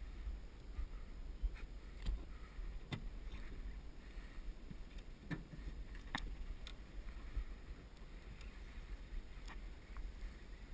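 Low wind-and-water rumble around a small boat, broken by scattered sharp knocks and clicks as a landing net and gear are handled against the boat's gunwale.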